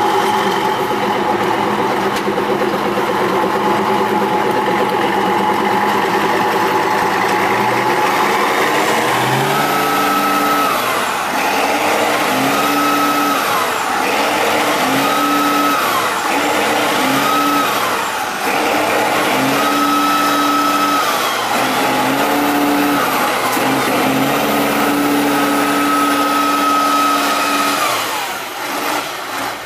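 Tatra 813 8x8 truck's diesel engine working under load on a steep dirt climb. It runs at a steady pitch at first; from about a third of the way in it is revved up and held, then eased off, about seven times in a row.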